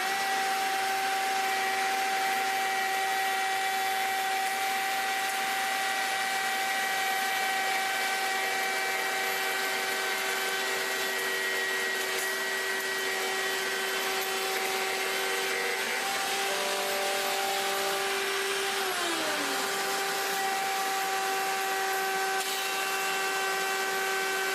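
Electric router running steadily at full speed, routing a cavity into a hardwood workbench top: a high, even whine over the hiss of the cut. Its pitch dips briefly once, late on.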